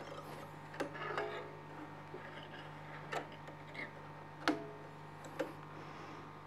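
Light, irregular clicks and taps of fingers handling thread and small metal parts around the needle and presser foot of a Bernette Sublime Chicago 7 sewing machine, over a steady low hum. About half a dozen clicks, the sharpest about four and a half seconds in.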